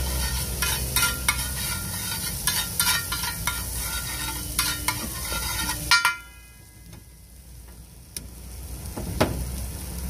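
Metal spatula scraping and tapping on a large flat iron tawa while an egg mixture is stirred and fried, giving repeated ringing metallic clicks over a sizzle and a steady low hum. About six seconds in the scraping stops suddenly and the sound drops much quieter, with a single knock near the end.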